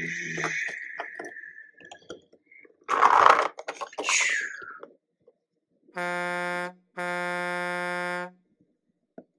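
A loud noisy burst about three seconds in and a falling whoosh, then two long horn honks of one steady pitch, the second longer, cutting off abruptly like a truck-horn sound effect.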